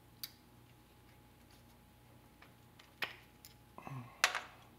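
Hand tools and small metal parts clicking as they are handled, a few separate light clicks and then a short, louder clatter about four seconds in as a tool is put down among others on the workbench.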